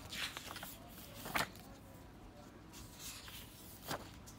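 Paper pages of a spiral-bound sketchbook being turned by hand, with short rustles and two sharp clicks as pages are flipped and handled.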